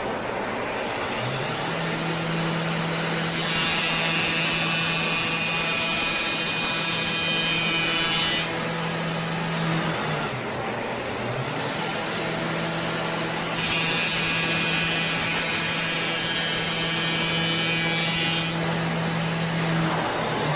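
A robot-held power grinder runs with a steady motor hum. It grinds a weld bead down twice, each pass a loud abrasive hiss lasting about five seconds.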